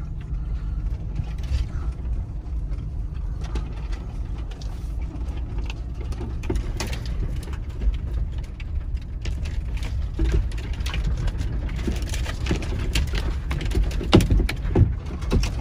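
A 2020 Toyota 4Runner's 4.0-litre V6 and tyres making a steady low rumble while crawling along a rough, overgrown dirt track, heard from inside the cab. Over it come scattered clicks and scrapes, more of them in the second half, as brush and branches drag along the body, which the driver calls pinstriping.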